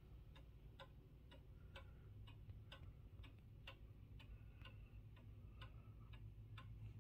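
Early-1900s 30-day pendulum mantel clock ticking faintly, about two ticks a second with alternating louder and softer beats.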